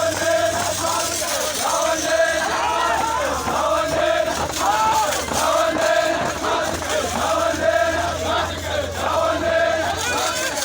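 Crowd of men chanting an Iraqi tribal 'arada (hosa) chant in unison, repeating a short sung phrase over and over.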